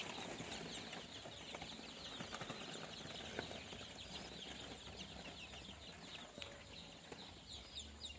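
A brood of young native chicken chicks peeping continuously, many short falling chirps overlapping one another.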